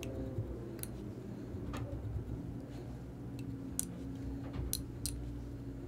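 Scattered faint clicks and ticks from hands wrapping a fur dubbing loop onto a streamer fly held in a fly-tying vise, over a low steady hum.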